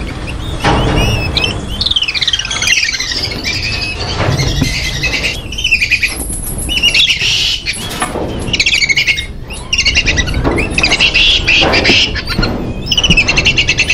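Monkeys calling: series of high-pitched chirps and squeals, some sliding downward in pitch. The calls come in bursts of a second or two.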